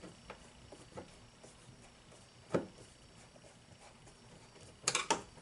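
Sparse small clicks and taps of hand tools and handling at a car's interior door panel as its screws are worked loose, with one sharper click partway through and a short cluster of knocks near the end.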